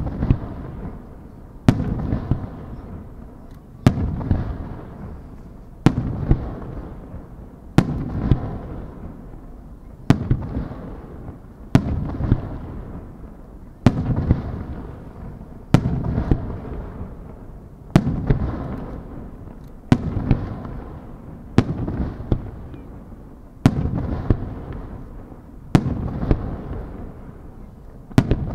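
Aerial firework shells bursting one after another at a steady pace of about one every two seconds, each a sharp bang trailing off in a long fading echo.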